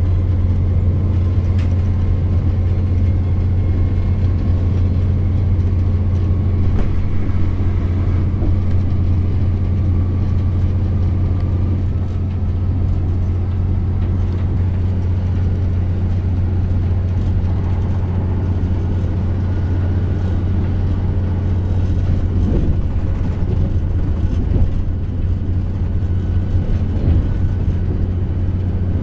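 Inside a Class 168 Turbostar diesel multiple unit running at speed: a steady low drone from its underfloor diesel engines, mixed with the rumble of wheels on the rails and a faint whine.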